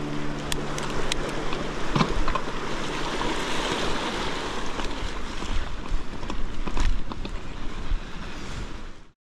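Wind rushing over the microphone together with the rumble and rattle of a mountain bike rolling down a dirt trail, with scattered clicks and knocks. The sound cuts off suddenly near the end.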